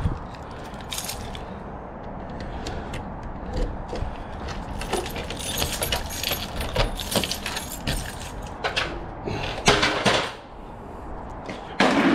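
Irregular rattling, clicking and knocking from hands working at a glazed wooden door, with a louder knock near the end.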